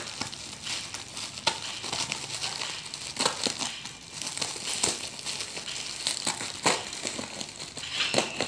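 Clear plastic packaging film crinkling and crackling in irregular bursts as it is cut with scissors and pulled off a new motorcycle front fender.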